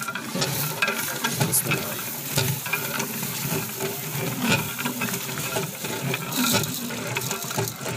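Powdered kheer mix sliding off a steel tray into a large pot of milk, with scattered clinks and scrapes of metal over a steady hiss.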